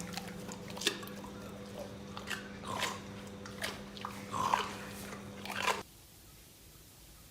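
Irregular crunching and clicking, like chewing, over a steady low hum; everything cuts off abruptly about six seconds in.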